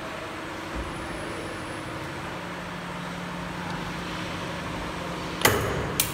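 Camless 12-axis CNC spring forming machine running while it forms rake teeth springs from wire, a steady mechanical hum with a couple of held low tones. A loud sharp metallic clack about five and a half seconds in and another near the end.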